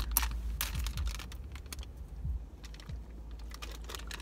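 Plastic candy bag crinkling and tearing as it is pulled open with teeth and fingers: a run of irregular crackles, thinning out in the middle and picking up again near the end, over a low steady rumble.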